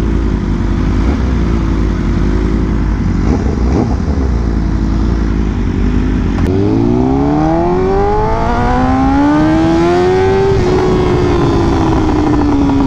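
BMW M1000RR's inline-four through a full titanium SC-Project exhaust, running at steady low revs. About six and a half seconds in, the revs climb in one long pull under throttle for about four seconds, then ease slowly back down.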